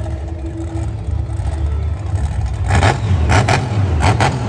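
Monster truck engine running with a deep steady rumble, then revved in short sharp bursts, mostly in quick pairs, from about halfway in.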